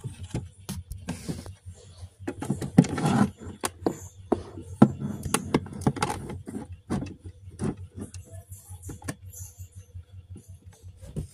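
Irregular clicks, taps and rustling close to the microphone, loudest around three seconds in: handling noise as a hand moves a plastic toy case.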